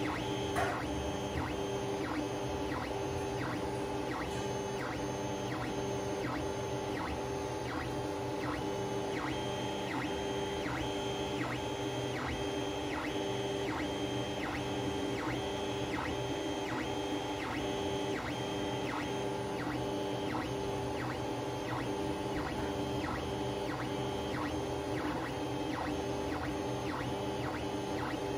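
Geeetech A20M 3D printer printing: its stepper motors whine in short, quickly repeating moves, the pitch switching on and off a few times a second over a steady hum. There is one sharper knock about half a second in.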